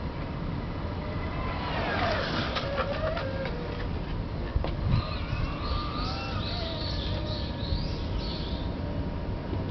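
FX1 electric kick scooter with an upgraded motor going past: its motor whine drops in pitch as it passes, with a few rattling clicks. Then birds chirp over a steady low rumble.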